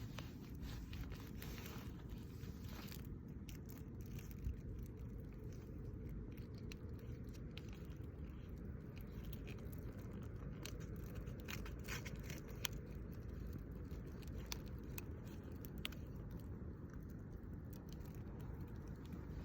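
Wood campfire crackling, with scattered sharp pops, a few of them louder, over a steady low background noise.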